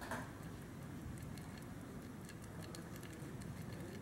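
Fast, even ticking of a 1940s Alpina pocket watch movement held close, over rubbing and handling noise as fingers turn the crown to set the hands. A short knock comes right at the start.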